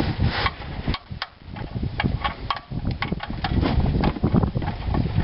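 Irregular clicks and knocks of hands and a wrench working at an oil drain plug, over a steady low rumble.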